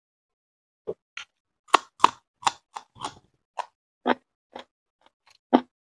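Close-up chewing of a raw green chili: a run of about a dozen short, wet, crunchy mouth sounds, two or three a second, starting about a second in.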